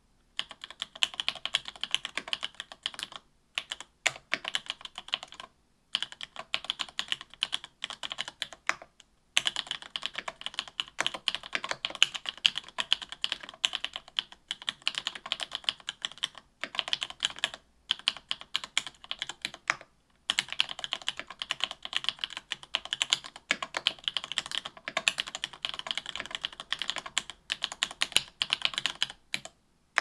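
Fast typing on an AL.BOK mechanical keyboard fitted with stock SP-Star Meteor White 57g linear switches, an aluminium plate and GMK keycaps: a rapid run of keystroke clacks broken by a few brief pauses.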